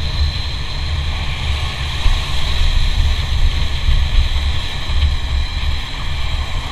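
Motorcycle on the move: steady engine and road noise with wind rumbling unevenly on the microphone.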